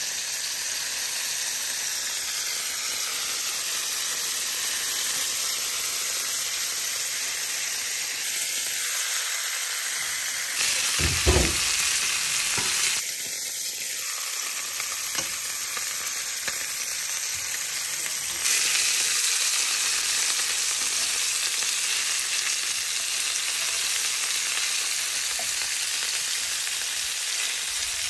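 Meat rolls (involtini) sizzling as they fry in hot fat in a pan, a steady frying hiss, while being turned with metal tongs. A brief low thump about eleven seconds in.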